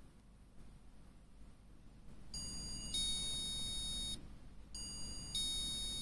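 Electronic chime of a JX-371D motion-sensor chime, sounding twice: each time a short tone followed by a longer one, about two and a half seconds apart.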